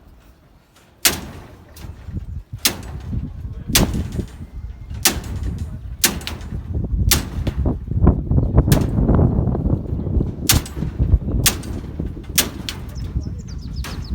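Repeated sharp knocks, roughly one a second, over a low rumbling.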